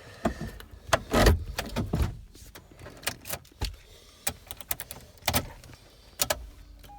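Scattered sharp clicks and knocks of hands working in the truck's cabin as the refitted HVAC control panel is handled and tested, loudest about one to two seconds in.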